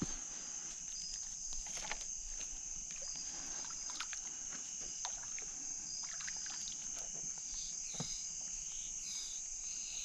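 Steady chorus of crickets, with scattered faint knocks and handling sounds as a hooked turtle is pulled in on a fishing line.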